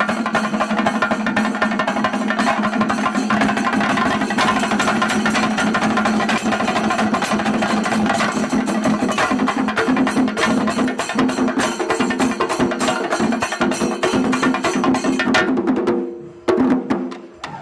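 Singari melam ensemble playing: many chenda drums beaten rapidly with sticks, with ilathalam brass cymbals, in a fast, dense, unbroken rhythm. The playing drops away briefly near the end, then starts again.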